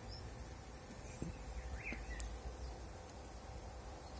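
Quiet background with a steady low rumble and a faint short chirp about two seconds in.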